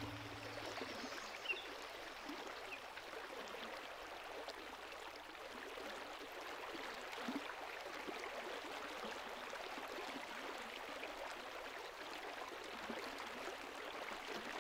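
Faint, steady rushing of a stream. The last of a held music chord fades out at the very start, and a couple of faint high chirps come in the first few seconds.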